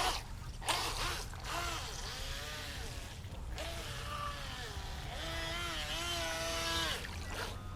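VolantexRC Vector 28 RC boat's electric motor whining on the water, its pitch rising and falling as the throttle is worked. A short sharp noise comes right at the start.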